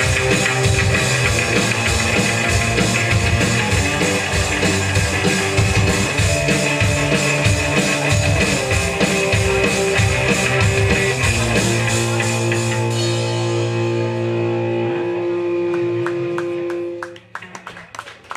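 Punk rock band playing live with guitar, bass and drum kit, with no singing. About two-thirds of the way in, the drums stop and held guitar and bass notes ring on, then cut off as the song ends near the end.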